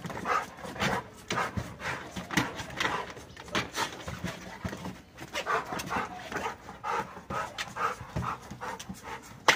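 Rottweilers panting in quick, irregular breaths.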